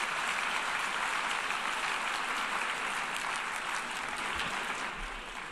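A large audience applauding steadily in a big hall, a dense even patter of many hands clapping that eases slightly near the end.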